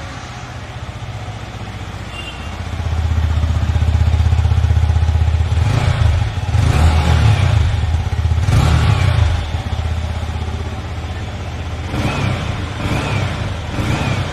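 Yamaha MT-15 V2.0's 155 cc liquid-cooled single-cylinder four-stroke engine running at idle, rising to a higher steady speed about three seconds in. It is revved twice in longer throttle blips between about six and nine seconds, then three quick blips near the end.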